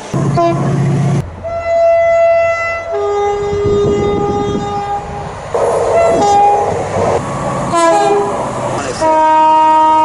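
Two-tone train horns sounding a string of blasts, stepping between a high note and a low note, with a moving train rushing past between blasts.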